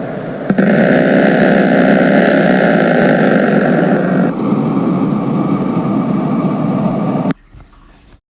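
Sauropod dinosaur call sound effect: a long, rough, rumbling call that starts about half a second in, shifts in tone about four seconds in, and cuts off suddenly after about seven seconds, leaving a faint tail.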